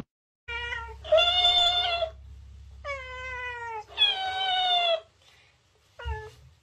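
A cat meowing and a dancing cactus toy repeating the meows back: five meows in all. The first and last are short, and the three in the middle last about a second each, one falling in pitch. A low steady hum runs underneath.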